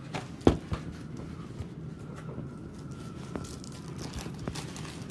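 Handling noise: scattered clicks and knocks with some crinkling over a steady low hum; the loudest knock comes about half a second in.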